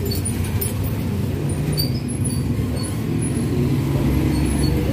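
Steady low rumble of motor vehicle traffic, swelling a little about three and a half seconds in.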